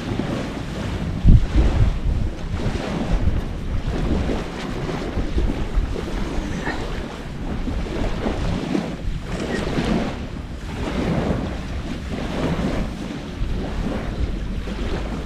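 Wind gusting across the microphone: a rushing noise that swells and fades every few seconds, with a heavy low buffet about a second in.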